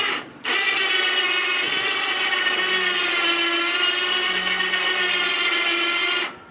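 The motor-driven winch of a homemade crane runs as it hoists a log of about 175 pounds, a steady whine that runs without strain. It stops for a moment just after the start, then runs on and cuts off near the end.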